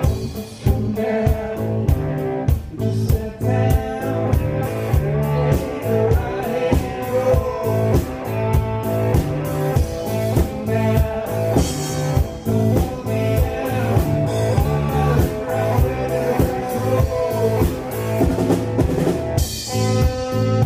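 Live blues band playing: cigar box guitar and electric guitar over a drum kit keeping a steady beat.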